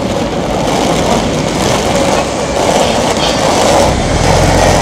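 Loud, steady rumble of passing vehicles, with a deep engine hum building near the end.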